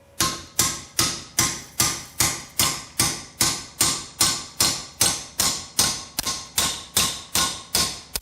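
Steady hammer blows on metal, about three a second, each with a short metallic ring, working a locking lug nut loose through a bolt welded onto it.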